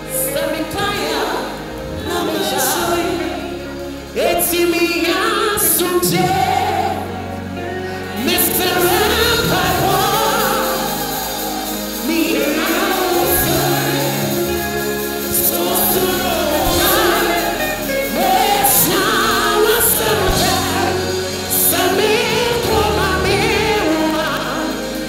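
Live gospel music: a man singing into a microphone over a band with keyboard, sustained bass notes and regular cymbal strikes.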